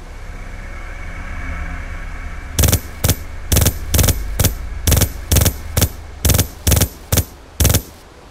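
Gunfire sound effects: about a dozen single sharp shots, roughly two a second, over a low rumbling drone that builds up before the shooting starts.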